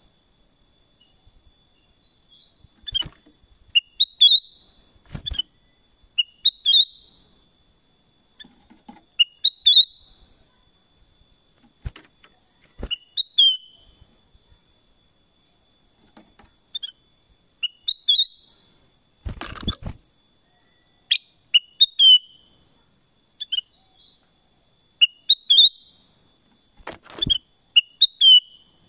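Black-crested bulbul (kutilang emas) singing short, quick whistled phrases, repeated every couple of seconds. A few sharp knocks and a brief noisy rustle about two-thirds through come between the phrases, over a faint steady high tone.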